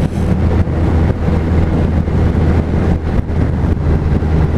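Suzuki Hayabusa's inline-four engine running at steady cruising speed, a constant low drone, with wind rushing over the microphone as the motorcycle rides down a wet road.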